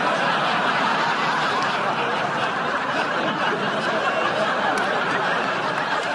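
Live studio audience laughing in one long, steady wave.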